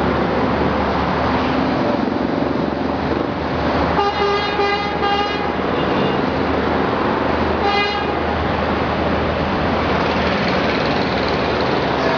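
Steady roar of multi-lane highway traffic, with a car horn honking for about a second four seconds in and a second short honk just before eight seconds.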